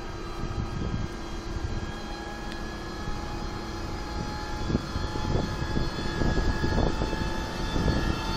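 ZSSK class 381 electric locomotive pulling slowly away with its train, giving a steady mechanical whine of several constant tones. A low rumble from the wheels grows louder in the second half.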